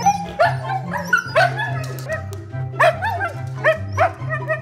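A dog whining in short rising-and-falling cries, about two a second, over background music with a steady bass line.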